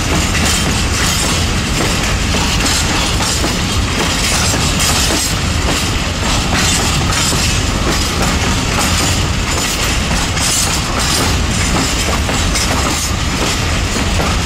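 Long freight train of open-top wagons rolling slowly through a station, with a steady rumble and the clickety-clack of wheels over rail joints and points. The track is in poor condition, which makes the passing trains loud.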